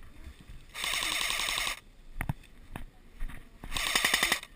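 Airsoft electric gun firing two full-auto bursts, the first about a second long and the second a little shorter about three seconds later, with a few single sharp clicks between and after them.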